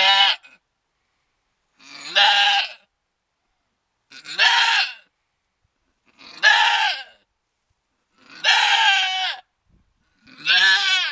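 A doe goat in labour bleating loudly, six calls of under a second each, about one every two seconds, as the water bag of a kid shows.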